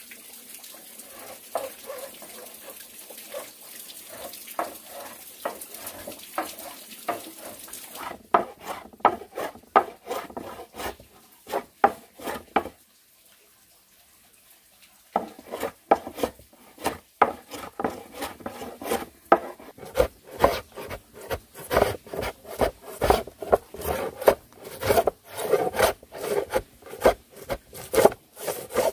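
A hand tool scraping over wood in quick repeated strokes, about two to three a second, with a pause of about two seconds midway. For the first few seconds there is a steady hiss under fainter strokes.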